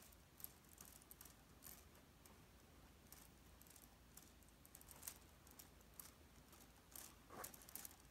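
Faint, irregular plastic clicks and taps from a LEGO Technic walking robot's four-bar-linkage legs as it moves over carpet, with a quick cluster of clicks near the end.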